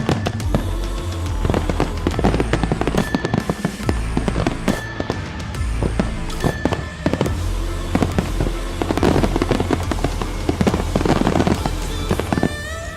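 Fireworks display: rapid volleys of bangs and crackling from aerial shells and cakes, densest in the last few seconds, over music with a steady bass line.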